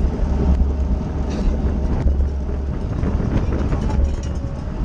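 Wind buffeting the microphone of a racing cyclist's onboard camera at speed: a heavy, steady low rumble, with a few faint clicks and rattles.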